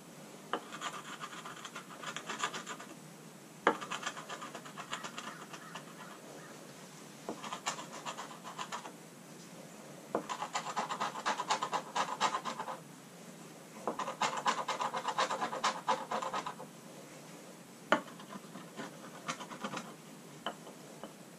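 Hand scraping of solvent-softened traction-mat glue off a jet ski's gel-coated deck: about six bursts of quick, rhythmic scraping strokes lasting one to three seconds each, most of them starting with a sharp tap, with short pauses in between.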